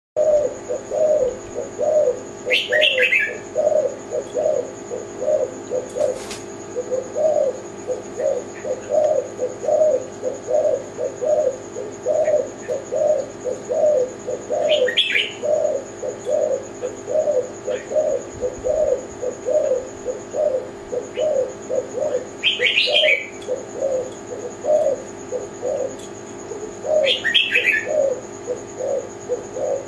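Spotted dove (tekukur) cooing in a long rhythmic run of low notes, about two a second. A small bird chirps briefly four times over it.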